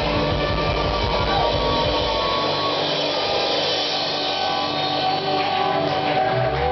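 Live rock band playing loud, distorted electric guitars over bass and drums. About two and a half seconds in the low end drops away, leaving sustained and bending guitar notes, and the heavy bottom returns near the end.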